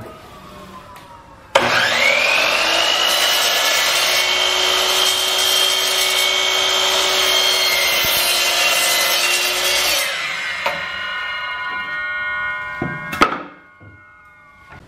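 A DeWalt sliding compound miter saw starts up with a rising whine about a second and a half in, then runs loudly as its blade cuts through a 1x6 board. After about eight seconds the blade winds down with a falling whine, and a sharp knock comes near the end.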